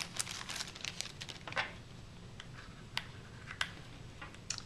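Thin plastic wrapping crinkling as a smartphone is pulled out of its plastic sleeve for about the first second and a half. Then come a few light, separate clicks and taps as fingers handle the phone and pick at its back cover.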